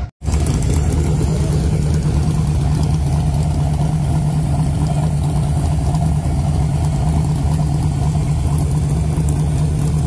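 Turbocharged small-block Ford V8 of a Fox-body Mustang drag car idling steadily and loudly, with no revving.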